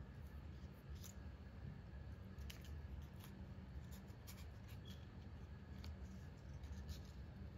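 Faint, scattered clicks and crinkles of cardstock paper cutouts being handled, pressed and layered by hand, over a low steady hum.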